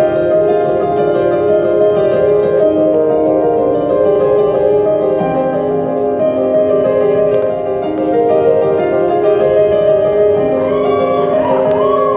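Live keyboard music: the slow instrumental intro of a song, with held, overlapping chords. A wavering, sliding tone joins near the end.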